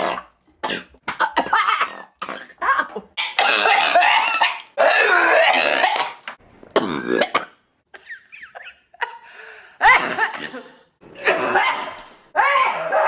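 A woman burping and coughing in a rapid string of short bursts, some long and drawn out, with abrupt cuts between them.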